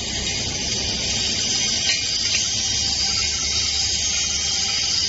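Steady hiss of running workshop machinery, with a faint hum beneath it.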